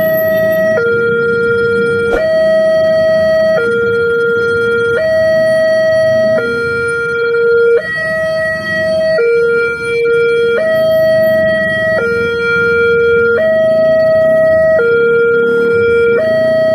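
Railway level-crossing warning siren sounding a two-tone hi-lo alarm. It switches between a lower and a higher tone about every one and a half seconds, warning that a train is approaching.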